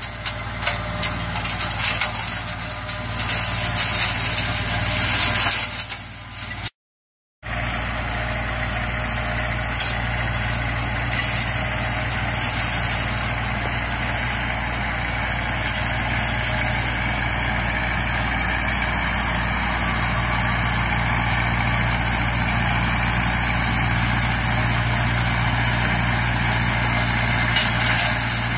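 Goldoni Aster 45 compact tractor running steadily under load while driving its PTO flail mower, the Sicma TE 160, whose spinning rotor shreds grass and adds a hiss over the engine drone. The sound cuts out completely for under a second about seven seconds in.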